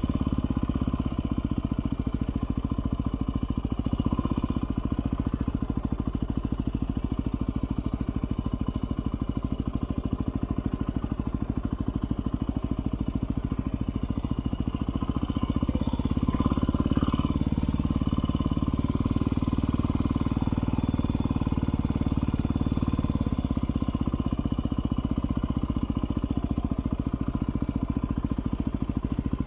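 2018 Yamaha WR250R's single-cylinder four-stroke engine running steadily at low speed in first gear while the bike weaves slowly through cones.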